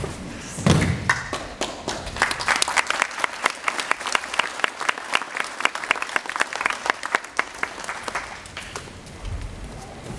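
A judoka thrown onto the tatami mat lands with a heavy thud a little under a second in, and the audience claps for several seconds after it, the clapping dying away near the end.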